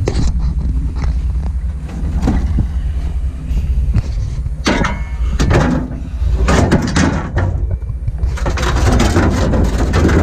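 Long-handled tools (shovel, rake, trowel) knocking and clattering as they are gathered and laid into a pickup truck bed, over a steady low rumble. The clatter is sparse at first and comes thick and fast in the second half.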